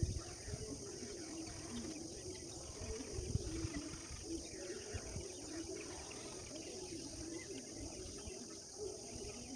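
Rural morning ambience: birds calling in the background over a steady high-pitched hiss, with wavering low calls and occasional low rumbles.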